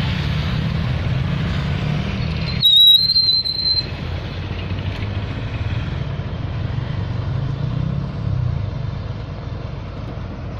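A truck engine runs with a steady low drone. About three seconds in there is a brief high squeal with a sudden jump in loudness.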